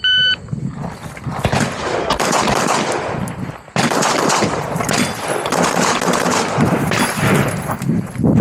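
A shot timer beeps at the start, then an IWI Jericho pistol fires in rapid strings, the shots running almost together, with a brief lull a little under four seconds in.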